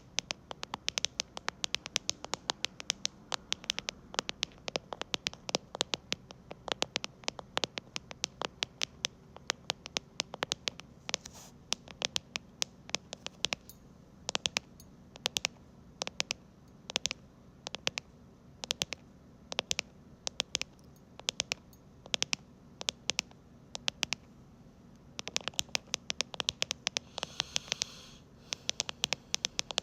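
Keyboard keys being tapped in quick runs of sharp clicks with short pauses, the deep, soft 'creamy' key sound. Near the end there is a brief scratchy rubbing.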